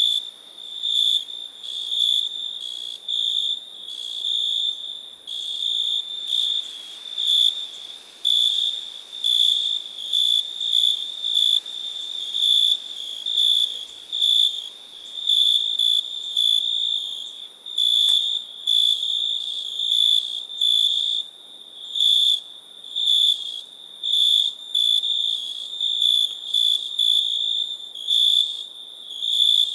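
Crickets chirping: a high-pitched, pulsing chirp repeated roughly once a second.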